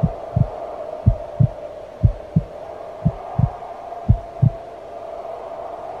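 Heartbeat sound effect: five slow double thumps, about one a second, over a steady drone; the beats stop about a second and a half before the end.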